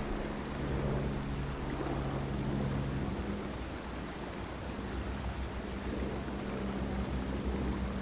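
Steady rush of a flowing river, with wind buffeting the microphone and a low steady hum underneath that drops out for a second or so in the middle.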